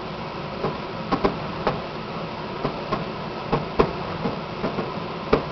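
Distant fireworks: a dozen or so sharp pops and bangs at irregular intervals over a steady background hiss, the loudest nearly four seconds in.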